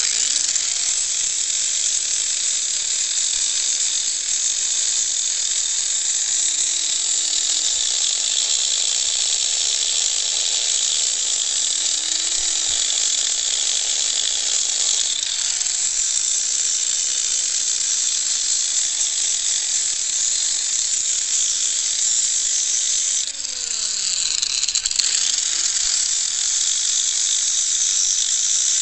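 Handheld grinder with a chain disc running steadily and sanding down a horse's hoof wall, its motor pitch wavering as the load changes. About three-quarters of the way through it slows sharply and spins back up.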